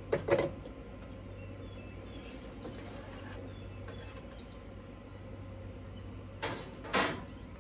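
Metal clanks as a stainless canning pot's lid and the perforated rack over the jars are lifted off and set down. There is a clatter right at the start and two louder clanks near the end, over a steady low hum, with faint bird chirps.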